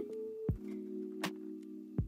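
Background music: low held chords with a light, sharp tick about every three-quarters of a second.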